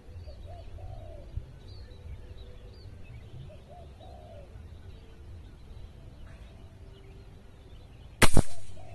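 Hummer X PCP air rifle firing a slug once: a single sharp crack near the end, followed by a short fading tail.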